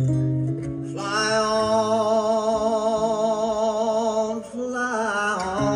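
A man's voice singing a long held note with vibrato over a sustained acoustic guitar chord, followed by a shorter rising sung phrase; a few acoustic guitar notes open the passage and return at the very end.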